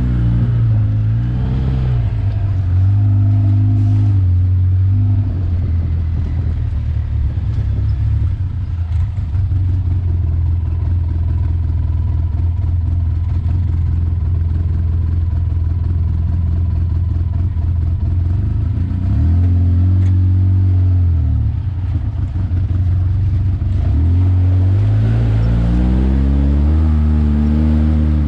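Off-road vehicle's engine pulling through mud on throttle, the revs rising and falling in several surges with a steadier low drone between them.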